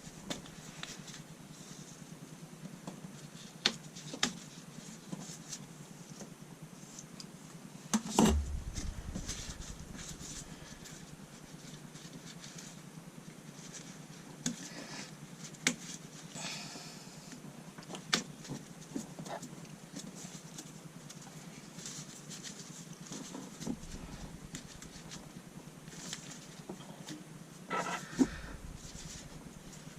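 Scattered small clicks and knocks of hands working on parts, with a louder knock about eight seconds in and another near the end, over a steady low hum.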